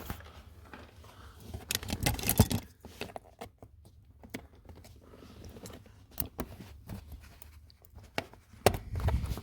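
Handling noise as a plastic interior trim piece in the footwell is fitted back into place: scattered clicks and knocks with a light scraping, with a busier patch about two seconds in and another near the end.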